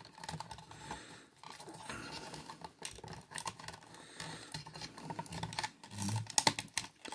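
Small plastic action-figure parts being handled and fitted together, making light scraping and scattered clicks. A quick cluster of sharp clicks comes about six seconds in as a piece is pressed into place.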